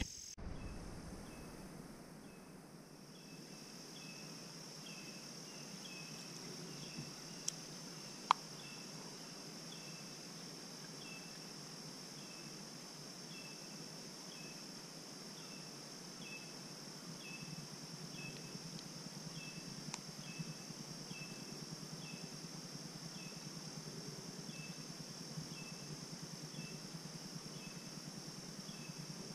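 Insect chorus: a steady high buzz with a short chirp repeating about every 0.7 seconds. A couple of sharp clicks stand out about eight seconds in, and one more near the twenty-second mark.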